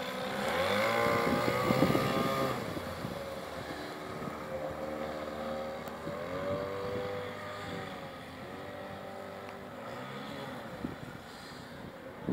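15 hp Evinrude outboard motor driving a small inflatable boat at speed: its note rises as it is opened up and is loudest in the first couple of seconds, climbs again about six seconds in, then grows fainter as the boat runs off.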